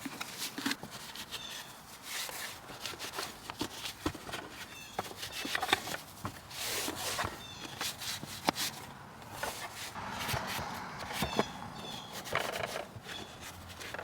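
Plastic truck center console parts being handled: irregular clicks, light knocks and rubbing.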